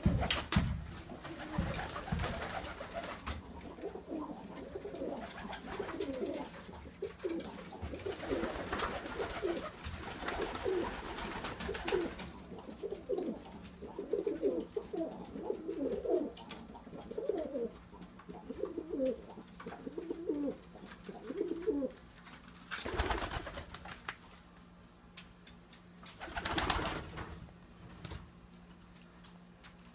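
Domestic pigeons cooing over and over, low calls repeated through the middle stretch, with a few short noisy bursts in between.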